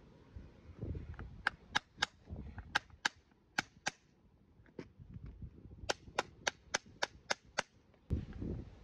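A farrier's hammer striking steel in short, sharp taps as a new horseshoe is nailed onto a horse's hoof. The taps come in small groups of two or three in the first half, then a quicker run of about nine taps near the end.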